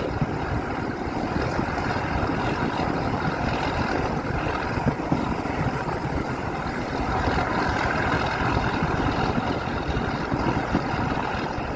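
British Rail Class 31 diesel locomotive's English Electric V12 engine running steadily.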